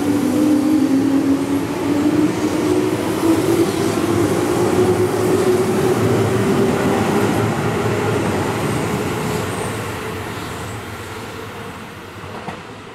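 Keihan 6000-series electric train running past at low speed: a steady rail rumble with a motor whine that climbs in pitch as the train gathers speed. It fades over the last few seconds as the train moves away.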